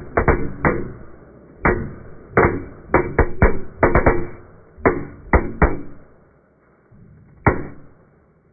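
Homemade cardboard airsoft gun with syringe parts firing 6 mm plastic BBs: a string of sharp, irregularly spaced shots, some in quick clusters. The shots thin out after about six seconds, and a single last shot comes near the end.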